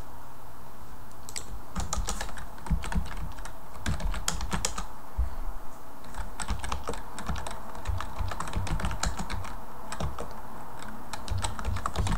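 Typing on a computer keyboard: key clicks in quick, irregular runs with short pauses between them.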